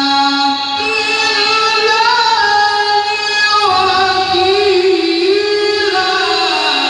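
A Qur'an reciter's voice in melodic tilawah style, drawing out long held notes that slowly rise and fall in pitch with ornamented turns.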